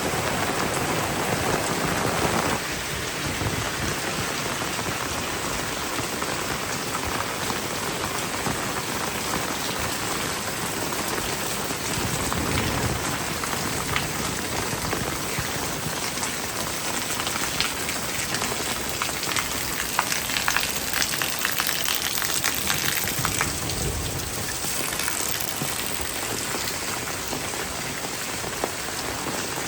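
Heavy rain falling steadily, with many individual drops ticking close by, thickest around twenty seconds in. A deeper rush in the sound drops away about two and a half seconds in.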